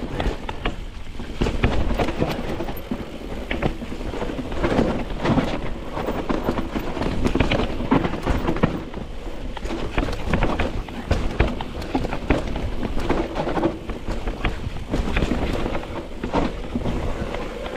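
Mountain bike riding down a rough dirt and rock trail: tyres rolling and crunching over the ground, with constant irregular knocks and rattles from the bike. A steady low rumble of wind buffets the microphone.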